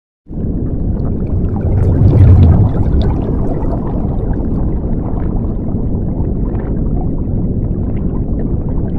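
Underwater bubbling and rumbling sound effect, starting suddenly after a brief silence. It swells loudest about two seconds in as the bubbles burst, then holds at a steady low rumble.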